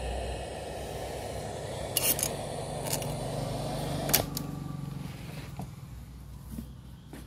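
Steady static hiss over a low hum, broken by three sharp clicks; after the last one, about four seconds in, the hiss dies away.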